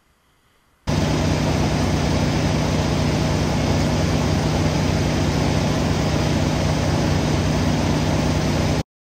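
An engine running steadily at a constant speed, with a strong low hum. It starts abruptly about a second in and cuts off suddenly just before the end.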